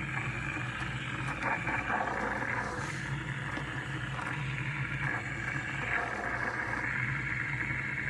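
Espresso machine's steam wand frothing 2% milk in a mug: a steady hiss over a low machine hum, the milk warming and foaming with fine bubbles.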